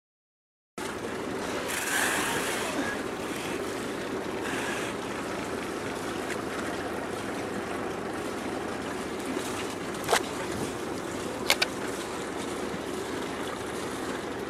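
Steady wind and water noise in a harbour. There is a sharp knock about ten seconds in and a quick double knock a second and a half later.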